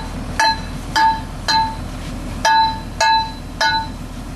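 Hammer striking steel: six ringing clangs about half a second apart, with a short pause about two seconds in.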